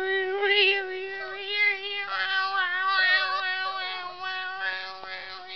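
A small dog crying in a long, drawn-out high whine that holds one pitch, its tone wavering throughout.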